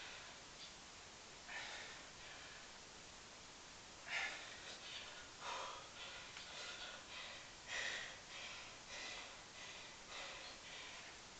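A man breathing hard from the exertion of a long set of pistol squats, with short forceful puffs of breath through the mouth and nose, one or two a second and irregular, pausing briefly early on.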